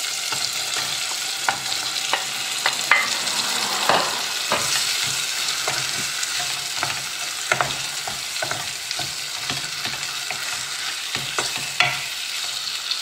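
Tomato sauce sizzling and frying in a saucepan as frozen mixed seafood (squid, cuttlefish, prawns and mussels) is added and pressed into it. A steady hiss runs under scattered small knocks and clicks of the pieces and hand against the pan.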